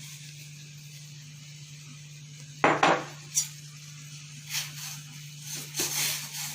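Metal kitchen utensils clinking and knocking against pots a few times, starting about two and a half seconds in, over a steady low hum.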